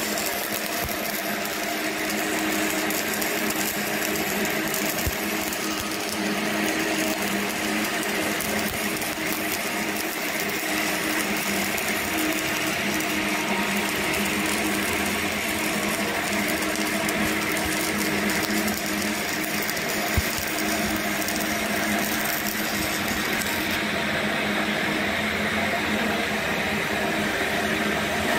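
Electric welding arc buzzing steadily through a long continuous run of a vertical fillet (3F) weld.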